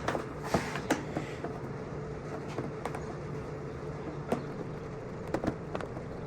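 Scattered clicks and light knocks of hand work on a dirt bike's seat and fender mounting, over a steady low hum.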